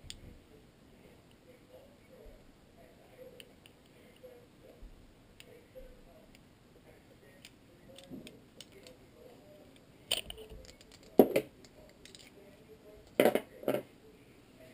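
Parts of a Hi-Point pistol being handled during disassembly: quiet fiddling, then a few sharp metallic clicks and knocks, one cluster about ten seconds in and another near the end.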